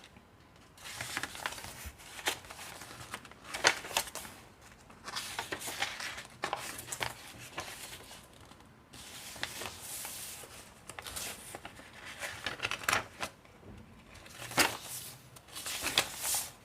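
Paper pages and cards of a handmade junk journal being handled and turned: irregular rustling and crinkling of paper, with a few louder crackles near the end.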